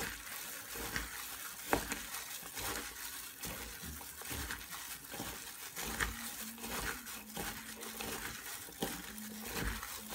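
A hand in a plastic glove squeezing and tossing sliced onions with chili and salt in a bowl: irregular crinkling and rustling of the glove with small soft clicks.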